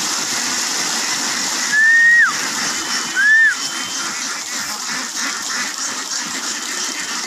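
A flock of hundreds of domestic ducks paddling and milling in a flooded rice field: a steady wash of splashing water with scattered quacking. Two short whistles, each rising then falling, stand out about two and three and a half seconds in.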